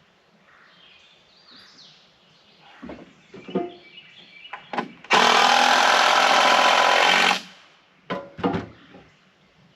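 Power drill driving a screw into a wooden roof support board: one loud, steady whir of about two seconds that stops abruptly, with a few knocks of wood and tool handling just before and after it.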